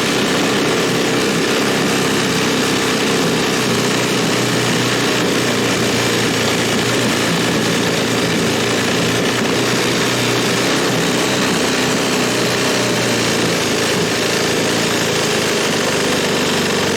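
Tecumseh H35 single-cylinder four-stroke engine of a small homemade snowmobile running steadily at a constant speed.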